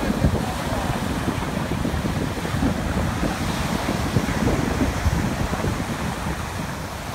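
Small surf washing in and breaking at the shoreline, a steady rush of water, with wind buffeting the microphone and adding a low rumble.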